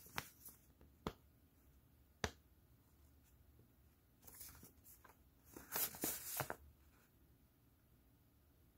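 Paper instruction manual being handled: three sharp ticks in the first couple of seconds, then paper rustling twice, briefly about four seconds in and longer about six seconds in.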